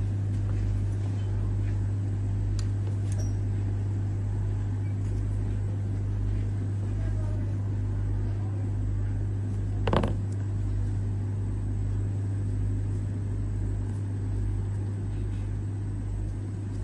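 Steady low hum with a pulsing rumble beneath it, and a single sharp click about ten seconds in.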